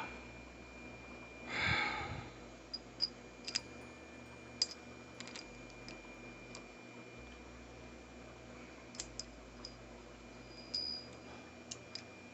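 Scattered light clicks and taps of small tools being handled, about a dozen over the stretch. There is a breath or sigh about a second and a half in.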